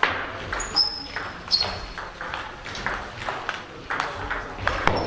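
Table tennis rally: the celluloid ball clicking back and forth off the bats and the table, about every third of a second, with a few short high squeaks in the first two seconds.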